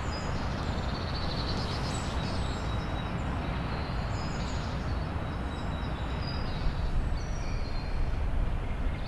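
Outdoor ambience: a steady low rumble with small birds chirping now and then in short high notes.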